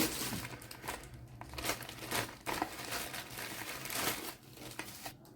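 Packaging crinkling and rustling in the hands as cosmetic gifts are unwrapped and handled, in irregular short bursts.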